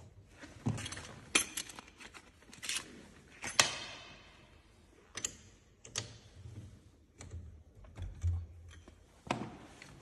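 Scattered clicks, clinks and knocks of a plastic platform pedal being handled and threaded by hand onto a bicycle crank arm. One sharper metallic clink with a short ring comes about three and a half seconds in.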